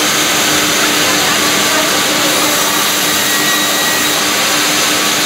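Log-resawing band saw running, a steady loud whir of the blade and its motor, with a constant low hum.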